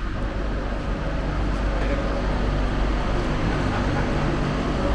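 Underground railway station ambience: a steady low hum, with passengers' voices murmuring faintly.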